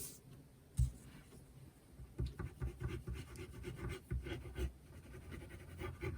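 Card stock being handled and rubbed on a work surface: soft irregular scratching and light taps, with a single short knock about a second in.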